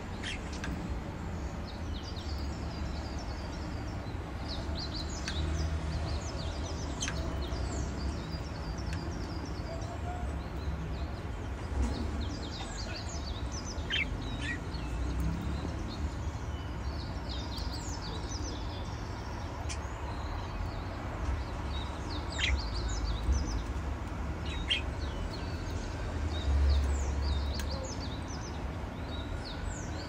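Budgerigar giving short, scattered high chirps over a low steady hum.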